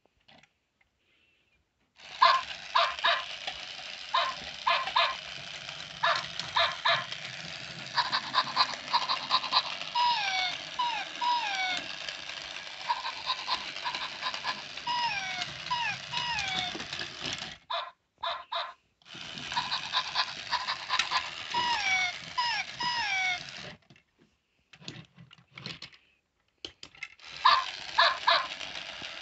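Knock-off robot dog toy playing electronic bark and yip sounds in quick bursts, with runs of short falling whimper-like chirps in the middle. It starts about two seconds in and stops briefly twice.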